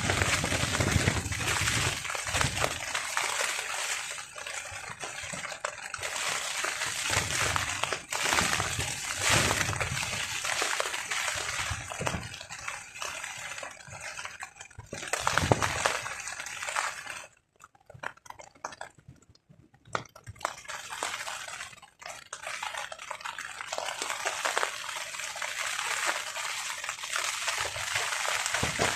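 Rain beating on a tarp in strong gusting wind: the noise swells and falls with the gusts, with low buffeting surges. It drops almost away for a couple of seconds past the middle, then returns.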